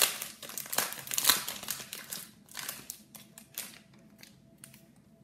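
Foil wrapper of a trading-card pack being torn open and crinkled, a dense crackle for the first two seconds or so, then thinning to scattered crinkles and clicks as the cards are handled.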